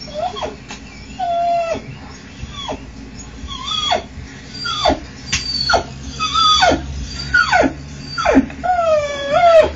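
A dog whining and whimpering in a series of high cries, roughly one a second, most of them falling sharply in pitch, over a steady low hum.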